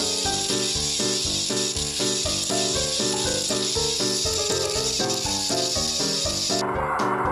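Background music, a bouncy tune with a steady beat, over a steady high hiss that cuts off suddenly near the end.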